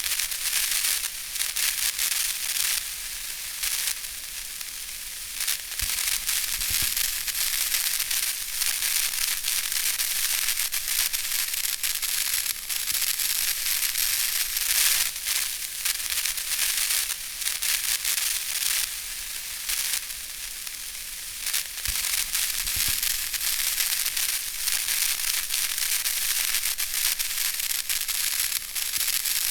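Electric static: a steady, high-pitched hiss dense with sharp crackles, running without a break.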